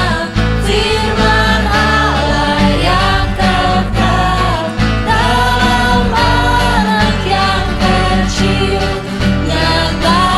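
Voices singing a Christmas praise song with band accompaniment: a sung melody over steady bass and drums.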